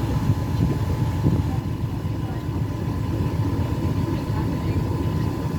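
A river cruise boat's engine running steadily, a low rumble with a faint steady whine above it, heard from on board.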